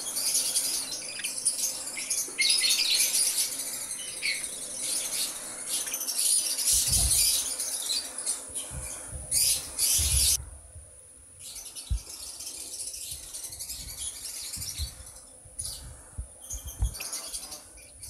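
Caged lovebirds chattering in a dense run of rapid, high-pitched chirps and squeaks that thins out to fewer, quieter calls about ten seconds in. Some low thumps are heard from about seven seconds on.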